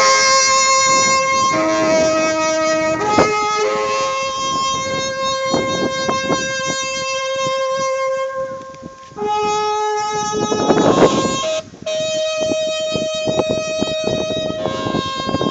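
A wind instrument playing a slow melody of long held notes, with two short breaks between phrases.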